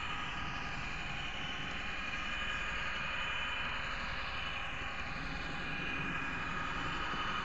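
N-scale model train running along its track, heard close up from the car carrying the camera: a steady whine from the small motor and gears with a few fixed high tones, over the rolling noise of the wheels on the rails.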